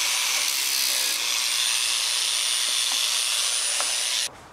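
Handheld angle grinder running with a cut-off disc, grinding through a steel threaded rod: a steady grinding noise with a thin high whine. It stops abruptly near the end.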